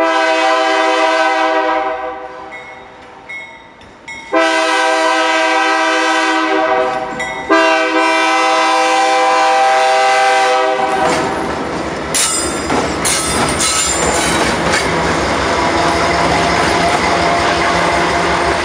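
Diesel freight locomotive sounding its multi-note air horn in long blasts for a road grade crossing. About eleven seconds in, the horn stops and the locomotive passes close by, its engine rumbling and its wheels clattering and clicking over the rails.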